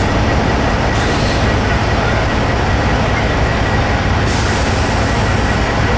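Diesel semi-truck engines running, a steady low rumble; a higher hiss joins about four seconds in.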